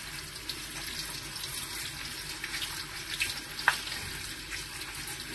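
Cold tap water running into a plastic colander of glass noodles in a sink, with a hand swishing the noodles through the stream to rinse them; a short tick about two-thirds of the way in.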